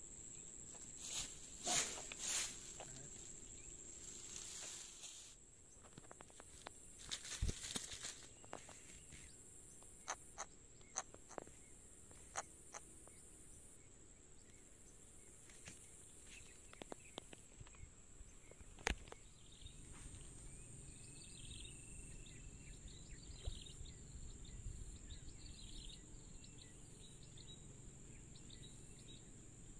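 A steady, high-pitched insect drone, with scattered clicks and rustling in dry grass, most of them in the first dozen seconds and one sharp click a little past the middle.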